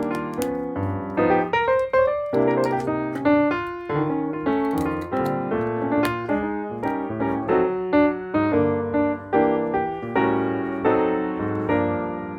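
Background piano music: a steady run of piano notes and chords struck one after another.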